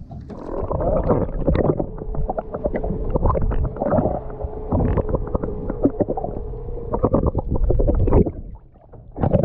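Muffled underwater sound from an action camera held below the surface: water rushing and knocking against the camera housing over a low rumble, with a steady hum through the middle.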